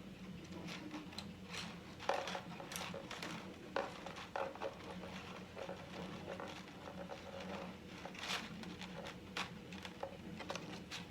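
Scattered light clicks, taps and rustles as a zigzag-folded strand of wire twinkle lights is pushed and arranged into the back of a 3D-printed plastic frame.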